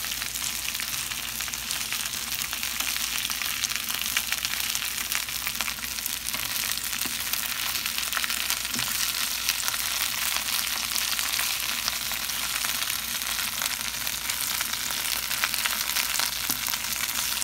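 Spinach sautéing in a frying pan on medium-low heat: a steady sizzle with fine crackling.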